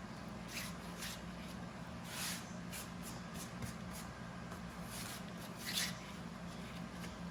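Hands working and kneading homemade pasta dough, giving soft, irregular rubbing and scraping noises, the clearest about two and six seconds in, over a steady low hum.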